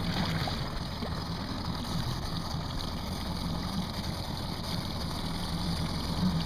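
Mercury outboard motor idling out of gear with a steady low hum, with water noise around the boat.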